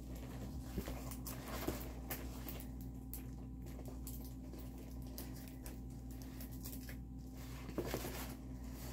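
Faint rustling and a few soft taps from a diamond-painting canvas being handled, over a steady low hum. The taps come about a second in, around two seconds in, and again near the end.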